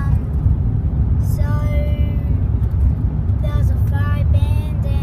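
Steady low rumble of a car driving on an unsealed dirt road, heard from inside the cabin, with a voice or tune carrying over it twice.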